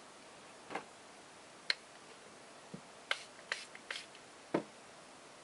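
Seven or so light, irregular clicks and taps of acrylic paint supplies being handled on a work table while a paint colour is chosen, with a small cluster of clicks about three to four seconds in.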